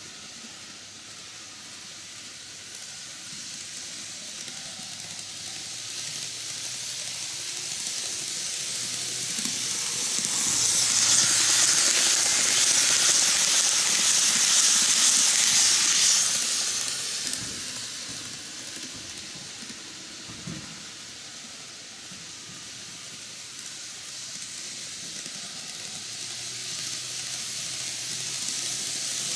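N-gauge model electric train running on plastic track: a hissing rattle of small wheels on the rails with a faint motor hum. It grows as the train comes round, is loudest for about six seconds as it passes close by, fades, then builds again near the end as the train comes round once more.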